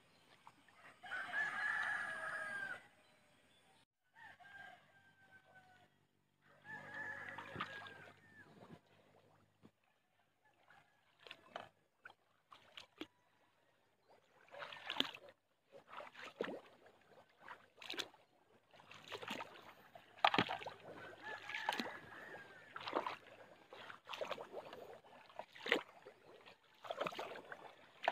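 A rooster crowing three times in the first few seconds, each crow a long call that falls away at its end. After that come splashing footsteps wading through shallow muddy water.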